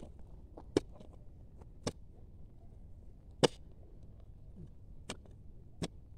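A long steel digging bar stabbed repeatedly into hard, stony ground to loosen the soil around a bidara (jujube) sapling's roots so it can be prised out. Five sharp strikes at uneven intervals, the first and third the loudest.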